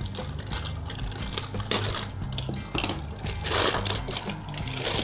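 Clear plastic parts bag crinkling and rustling as it is pulled open around a black hard-plastic motorcycle cover, with sharp clicks and knocks of the plastic. There is a louder rustle about three and a half seconds in.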